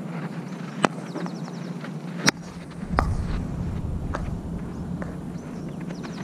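Field hockey stick striking and stopping a hard ball on artificial turf: a few sharp clacks about a second apart, over a steady low hum and outdoor noise.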